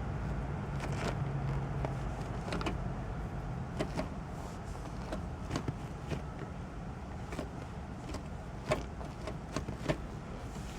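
Manual car gear shifter with a newly fitted shift knob being moved through the gears: irregular clicks and clunks as the lever goes in and out of gear, over a low steady hum.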